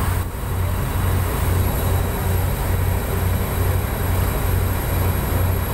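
Engine of a motorized outrigger boat running steadily under way: a low hum pulsing in an even beat over the constant rush of water along the hull and wind.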